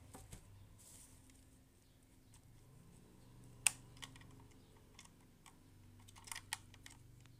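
Plastic clicks from handling a Sony ICF-306 portable radio and opening its battery compartment cover: one sharp click about three and a half seconds in, and a quick cluster of clicks about six seconds in.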